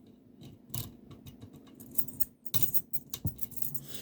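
Small metal clicks and rattles of lock picks and a tension wrench worked in a Corbin euro cylinder lock, with a busier cluster of clicks just past halfway.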